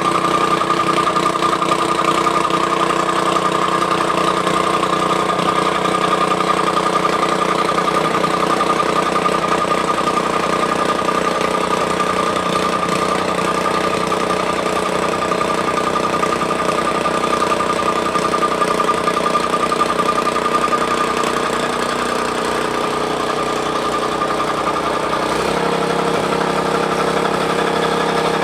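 Tamping rammer (jumping jack compactor) running steadily with its small engine, its note shifting about 25 seconds in.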